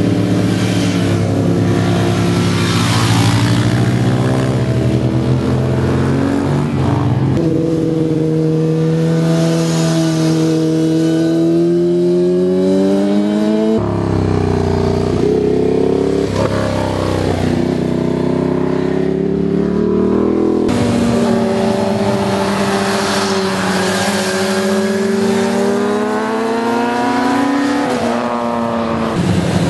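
Sport motorcycle engines revving hard as the bikes accelerate through a bend and pass, the engine note climbing and falling with throttle and gear changes. Several bikes follow one after another, and the sound changes abruptly twice, about halfway through.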